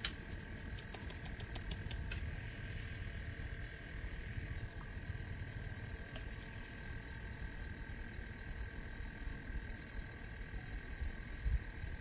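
Night-time insect chorus in a rice field: steady high-pitched trilling that holds one pitch, over a low rumble on the microphone. A short run of quick ticks comes about a second in.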